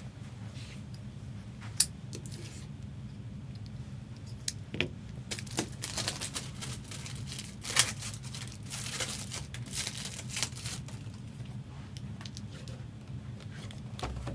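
Plastic trading-card supplies being handled: rustling and crinkling with scattered sharp clicks, busiest in the middle, over a steady low hum.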